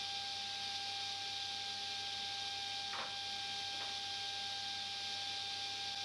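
Steady electrical hum over a constant hiss, with two faint light clicks about halfway through.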